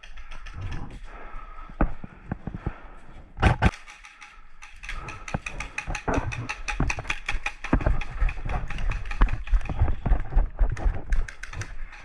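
Airsoft electric guns firing rapid strings of shots, each a sharp click with the gearbox clattering, most dense from about five seconds in until near the end.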